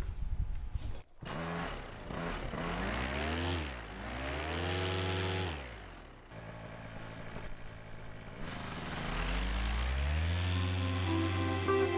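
Paramotor engine starting about a second in, revved up and back down twice, idling briefly, then throttled up to a steady higher power for the last few seconds.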